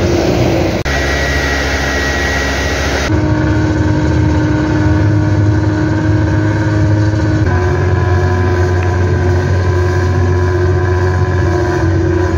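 Nissan Diesel CB87L bus's diesel engine and 'ngorok' (snoring) exhaust running with a deep steady drone. Its pitch jumps to new steady levels about one, three and seven and a half seconds in.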